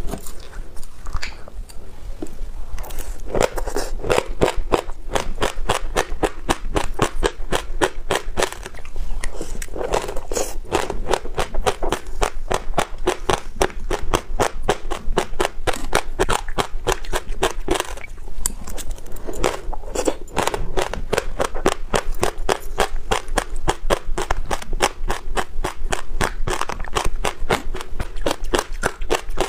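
Close-miked chewing of a mouthful of passion fruit seeds with yogurt: a fast, unbroken run of crisp crunches, several a second.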